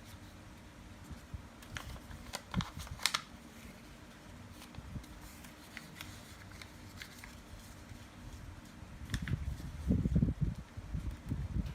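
A sheet of paper being handled and creased in folding: scattered crisp crinkles and clicks, then a cluster of dull low thumps near the end, over a steady low hum.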